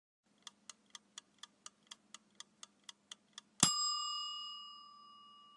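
Timer sound effect: a clock ticking about four times a second for about three seconds, then a single bell ding that rings on and fades away.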